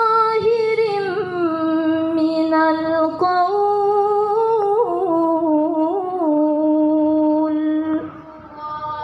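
A woman reciting the Qur'an in the melodic tilawah style through a microphone, holding long ornamented notes that step up about three seconds in and back down a few seconds later. The held note breaks off about eight seconds in.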